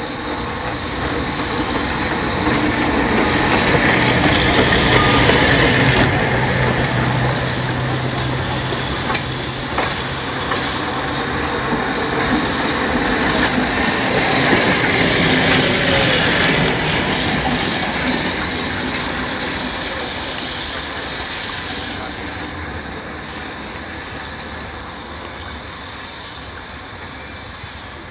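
Vintage trams, the maroon 611 followed by the yellow 436, rolling past one after the other. Their wheels run on the rails with a few clacks over rail joints, and the sound is loudest twice as each tram goes by. A steady low hum runs through the first half.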